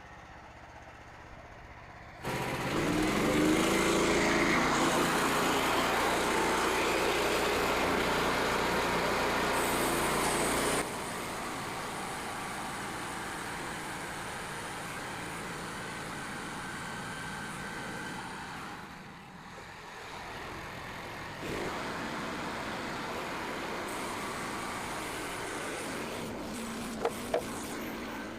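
Engine running steadily, changing abruptly in loudness several times: loudest for a stretch near the start, where it briefly rises in pitch, then quieter.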